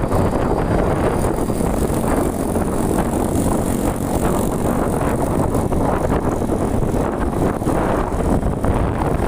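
Steady road and wind noise from a moving vehicle, a dense low rumble without clear engine pitch.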